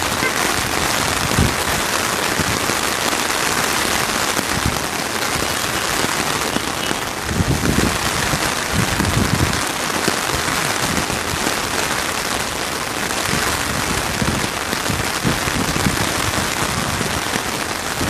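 Steady rain falling, an even hiss of drops close by, with a few short low thumps now and then.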